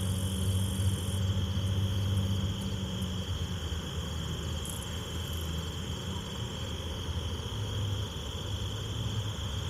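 Night insects chirring in one steady, unbroken high tone, over a low steady rumble.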